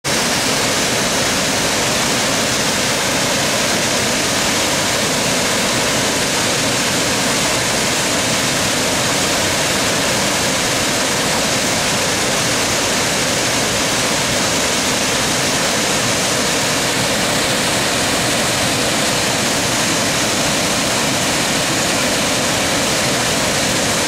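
Mountain-stream waterfall: white water pouring down a steep rocky cascade in a loud, steady, unbroken rush.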